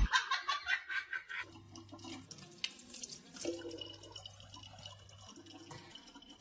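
A thin stream of tap water trickling quietly into a large plastic water bottle. A second or so of clicking and clatter comes before it at the start.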